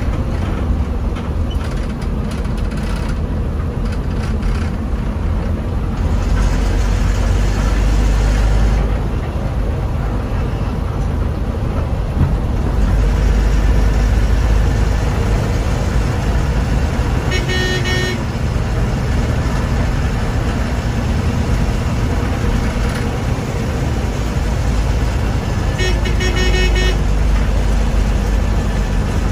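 Bus engine running with a steady low rumble while on the road. A horn sounds twice, about a second each time: once a little past the middle and again near the end.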